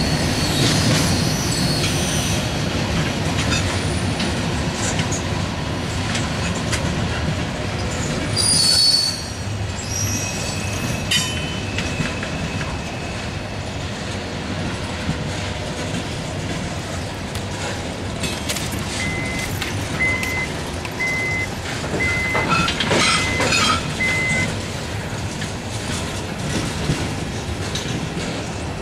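Freight cars of a CSX mixed freight train (covered hoppers, coil cars, tank cars) rolling past with steady wheel noise and clatter. Brief high wheel squeals come about nine seconds in, again around eleven seconds, and amid louder clatter past the middle. A short steady beep repeats six times, about a second apart, during that stretch.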